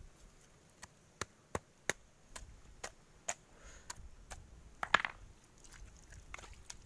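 Grilled sea urchins being cracked open: a tool knocks against the hard, spiny shells in a string of sharp taps about twice a second. The loudest knocks come around five seconds in.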